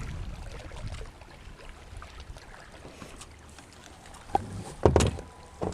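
Low handling rumble, then a few sharp knocks and thumps against a plastic kayak hull in the last second and a half, the loudest about five seconds in.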